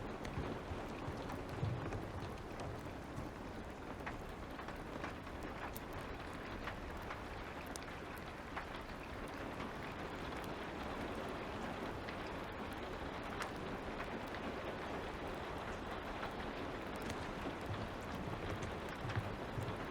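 Steady light rain with scattered small crackles from a wood fire, and a couple of soft low thumps, about two seconds in and near the end.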